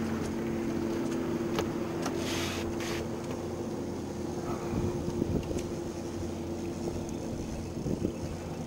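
Outboard motor of a small fishing boat running steadily, a low even hum, with a short hiss about two seconds in.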